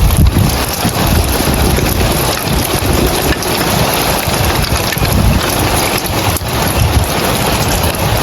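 Rain falling on roof tiles: a dense, steady hiss of drops, with an uneven low rumble underneath.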